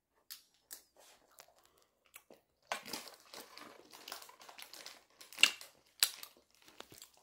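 Metal fork scraping and tapping on a plastic divided food tray while eating, with scattered clicks and rustles and a couple of sharper clicks near the end.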